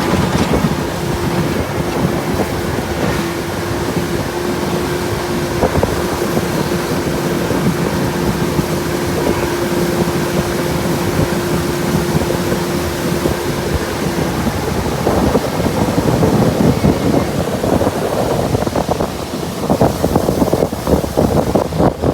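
Motorboat running on a river, with wind rushing over the microphone and water noise. A steady engine tone in the hum drops away about two-thirds of the way through, and the rest is gusty wind buffeting.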